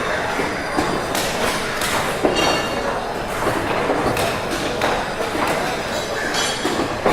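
Factory interior ambience: machinery running steadily with repeated metallic clanks and knocks, some of them ringing briefly.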